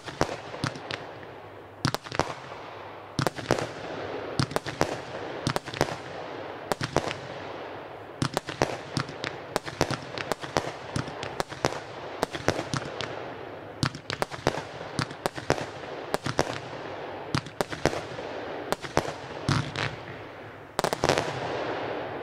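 Consumer firework battery (cake) firing shot after shot: a rapid run of sharp bangs from launches and small aerial bursts, several a second, over a steady hiss.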